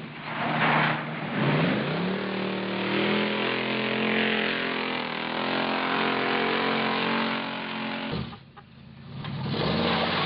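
The General Lee's 1969 Dodge Charger V8 accelerating hard. Its pitch climbs about a second and a half in, then holds steady. Near the end the sound drops away for about a second before the engine comes back.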